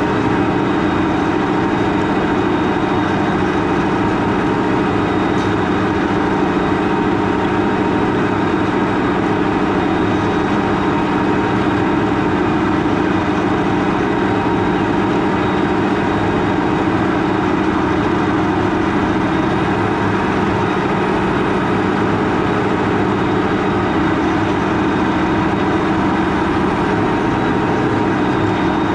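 Large farm tractor's diesel engine running at steady, unchanging speed, with a deep rumble and a constant hum.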